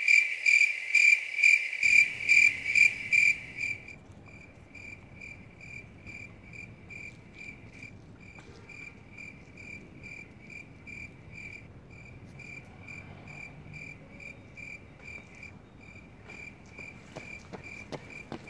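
A cricket chirping at night in a steady rhythm of about three high chirps a second, loud for the first three seconds and then fainter. A few faint taps come near the end.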